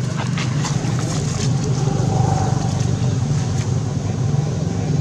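A steady low engine hum runs throughout, with a few sharp clicks in the first second and a half.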